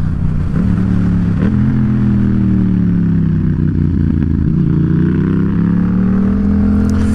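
Yamaha XSR700's parallel-twin engine under way: its pitch falls for a few seconds as the bike slows, then climbs again as it accelerates.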